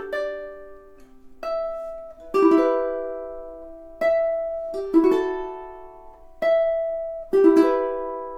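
Millar all-solid koa jumbo tenor ukulele played in a slow fingerpicked phrase: single notes and rolled chords, each struck about once a second and left to ring out and fade.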